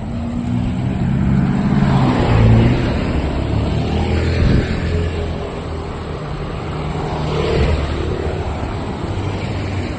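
Motor vehicles passing on a city street, engines rising and falling as they go by, loudest about two to three seconds in and again near the end.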